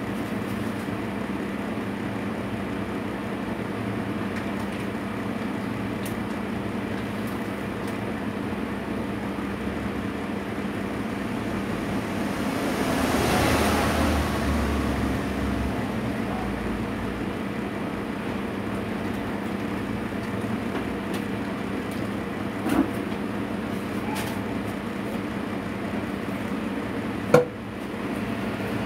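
Steady low machine hum over background noise, swelling for a couple of seconds about halfway through, with two short knocks near the end.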